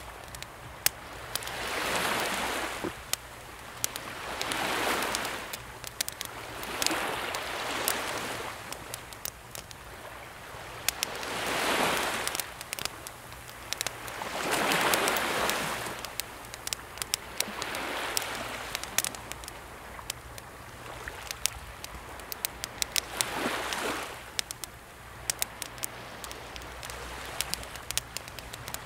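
Small sea waves washing in and drawing back in gentle swells every few seconds, with a wood campfire crackling in frequent sharp pops and snaps throughout.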